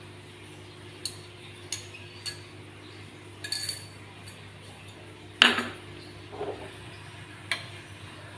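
Light clinks and knocks of a glass and kitchenware against a clay cooking pot, as sesame oil is poured in. A few scattered taps come first, then one louder knock about halfway through that rings briefly, and a last click near the end. A steady low hum runs underneath.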